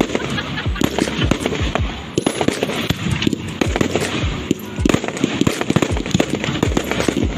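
Fireworks display: aerial shells bursting in a rapid, irregular run of loud bangs, several a second, with no let-up.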